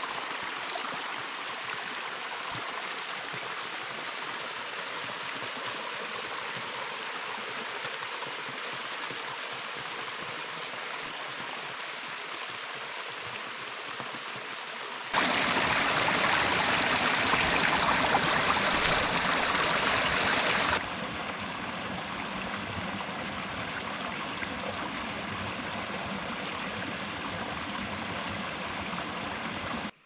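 Small rocky mountain creek running and splashing over stones in a steady wash of water. About halfway through it turns abruptly louder and fuller for about six seconds, where the water pours down a rock chute, then drops back to the steadier running.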